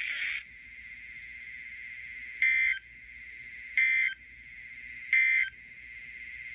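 Weather radio receiver sounding three short, buzzy Emergency Alert System data bursts, evenly spaced about a second and a half apart, over steady radio hiss. This is the pattern of the EAS end-of-message code closing an alert.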